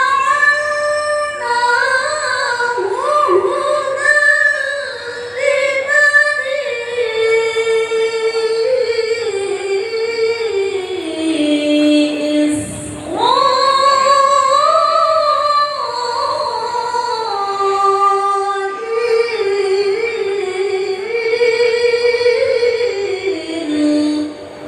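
Quran recitation in a high voice, chanted melodically in two long drawn-out phrases, each sinking to a held low note at its end, with a short breath between them about halfway through.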